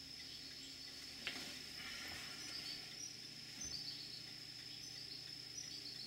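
Insects, such as crickets, trilling steadily in an unbroken high-pitched chorus. A single sharp click sounds about a second in.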